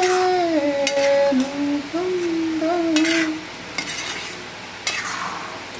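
A perforated steel spatula stirring lemon pieces in bubbling sugar syrup in an iron kadai, scraping the pan every second or two over a sizzle. For the first three seconds or so a voice holds long, steady notes.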